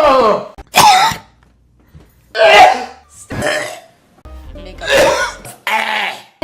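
Two men coughing and clearing their throats in turn: a string of about five short, voiced coughs, roughly a second apart.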